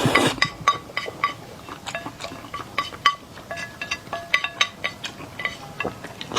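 Eating utensils repeatedly clicking and clinking against a bowl or plate, each tap ringing briefly, at an irregular pace.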